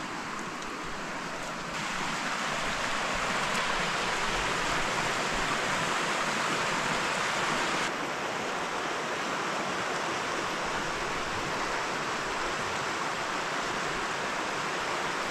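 Steady rushing of a shallow, rocky river flowing over stones. It gets louder about two seconds in and drops back a little partway through.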